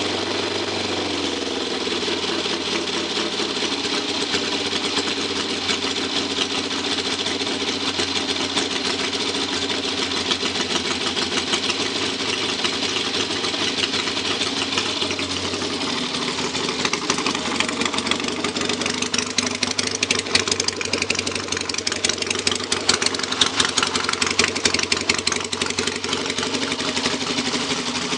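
Triumph parallel-twin drag-bike engine idling on its own just after a cold first-kick start, its first run after some 25 years in storage. The idle sounds choppier, with sharper peaks, in the second half.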